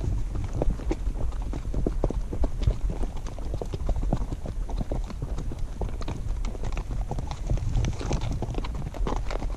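Horses walking on a dirt trail, their hooves clip-clopping in an uneven run of several hoof falls a second over a steady low rumble.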